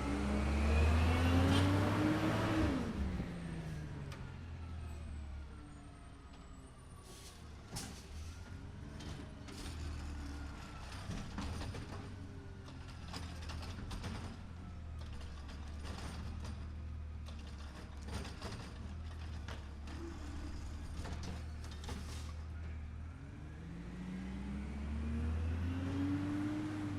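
Garbage truck with a robotic lifting arm: the engine revs up and falls back, then runs low and steady under a string of metallic clanks and knocks from the arm handling and tipping a bin. The engine revs up again near the end.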